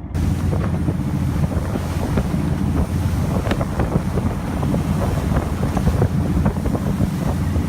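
A fishing boat's engine running with a steady low hum, wind buffeting the microphone and water splashing against the hull.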